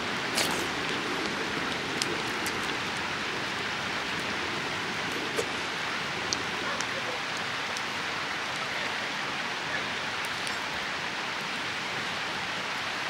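A steady, even hiss, like rain, runs underneath, with a few light clicks of a wooden spoon and chopsticks against the dishes.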